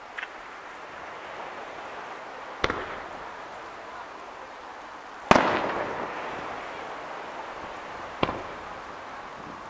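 Display fireworks going off: a faint pop at the start, then three sharp booms roughly three seconds apart, the middle one loudest with a long echoing tail.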